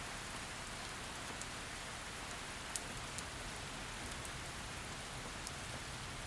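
Heavy rain falling steadily, an even hiss with a few sharp drop clicks scattered through it, the loudest about three seconds in.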